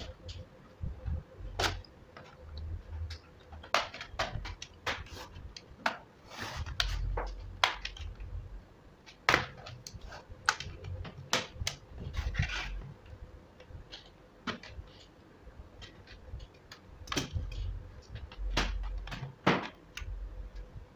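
Plastic bottom cover of an ASUS TUF Gaming FX505DT laptop being pried off by hand, its retaining clips snapping loose in an irregular string of sharp clicks, with handling bumps and rubbing against the chassis.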